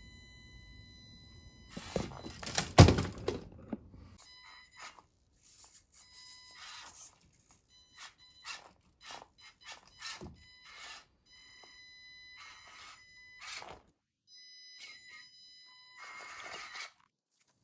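Mini RC crawler (3D-printed Axial SCX24 build) driving in short bursts: a thin electric motor whine that starts and stops with the throttle, among repeated knocks and scrapes of the truck on the terrain, the loudest a hard thunk about three seconds in.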